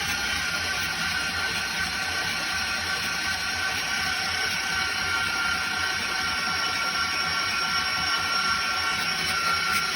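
Starter motor cranking a freshly rebuilt 6.0 Powerstroke V8 diesel with its glow plugs out, so it spins fast without compression and never fires. The run is steady, with a constant high whine, priming the oil system to build oil pressure.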